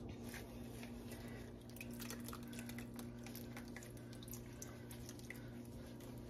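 Faint small splashes, drips and squishes as a ball of mozzarella curd is dipped in hot water and worked by hand, over a steady low hum.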